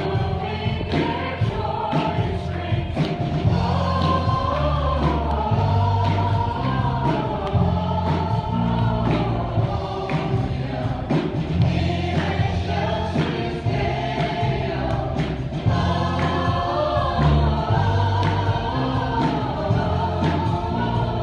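Live gospel worship song: a woman singing the lead over acoustic guitar and electric bass guitar, with a steady beat of percussion hits.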